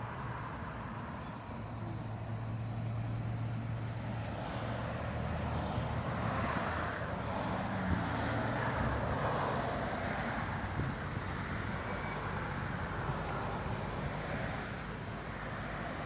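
Road traffic: car engines running at low speed, with a low hum throughout. A broad swell of engine and tyre noise comes from a vehicle passing about halfway through.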